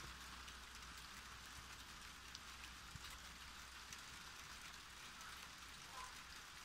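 Light rain falling: a faint, even patter with scattered small ticks.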